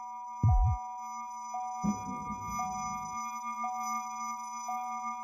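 Steady electronic sine tones, several held at once, each with a small pulse about once a second over a low hum. A short deep boom about half a second in is the loudest sound, and a low rumbling noise follows from about two to three seconds in.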